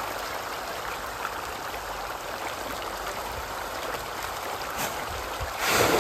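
A dense shoal of pond fish churning and splashing at the water's surface as they feed, a steady watery rush. Near the end a louder burst of splashing as thrown feed lands among them and the fish thrash for it.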